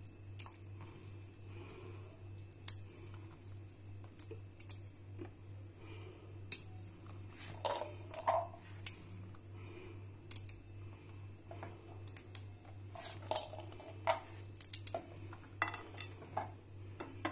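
Scattered light clicks and taps of chopped walnut pieces being dropped by hand onto a pancake on a plate, with small handling knocks, over a low steady hum.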